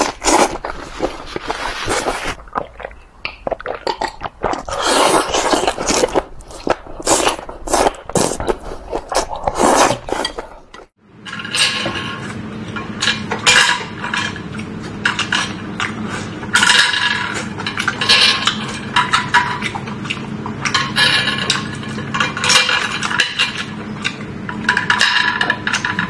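Close-up eating sounds: a mouthful of saucy noodles slurped and chewed. About 11 seconds in, after a brief gap, chopsticks clink and scrape on scallop shells and scallop meat is chewed.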